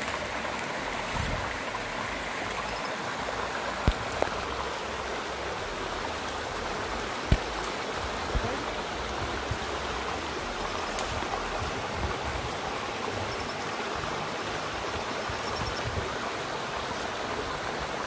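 Steady rush of flowing river water from the Kodhaiyar river, with a few sharp clicks about four and seven seconds in.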